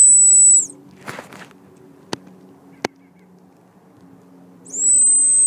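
Dog whistle blown twice, each a steady, high-pitched tone held about a second, the second near the end. A couple of sharp clicks sound between the two blasts.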